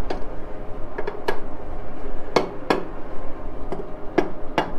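About eight light, sharp metallic taps and clinks, spaced unevenly, as the freshly doweled Harley-Davidson K model aluminium engine case halves are handled and checked on the machine table.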